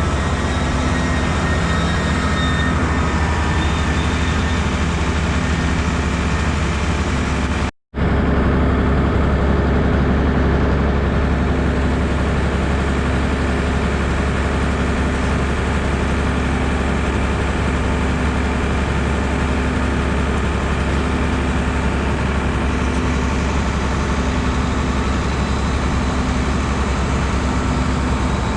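Tractor engine running steadily. It cuts out for an instant about eight seconds in, then runs on.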